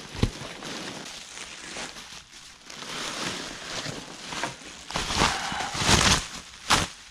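Bubble wrap crinkling and rustling as it is handled and pulled off a coilover, with packing peanuts shifting in a cardboard box. The crinkling grows loudest about five to six seconds in, and a sharp crackle comes just before the end.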